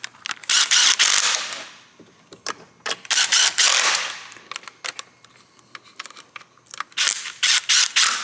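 Hand ratchet clicking in quick runs as a socket on an extension bar tightens the ECU mounting bolts. There are three bursts of rapid clicks a few seconds apart, with scattered single clicks between.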